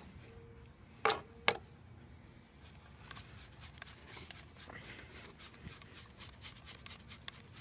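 A pet brush stroking through a Norwegian elkhound's thick double coat, a quick run of short brushing strokes about three a second from about three seconds in. Before that, two sharp clicks close together about a second in.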